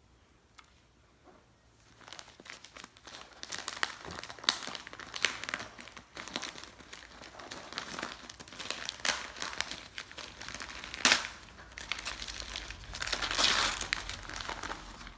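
Packaging crinkling and rustling as items are unwrapped by hand. It starts about two seconds in, as irregular crackles with a few sharper loud ones.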